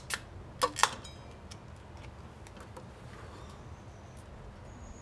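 A few sharp clicks and knocks in the first second, then a low steady background with a few faint ticks.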